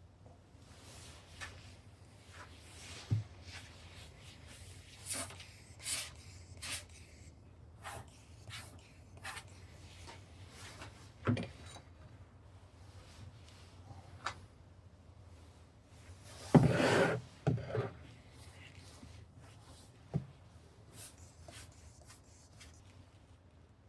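Hand work on a sand casting mould: scattered rubbing and scraping with a few sharp knocks. The loudest is a longer scrape about 17 seconds in.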